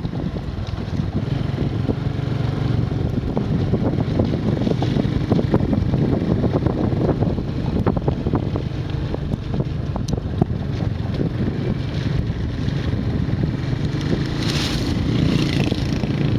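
Motorbike engine running steadily while riding, with wind rushing over the microphone.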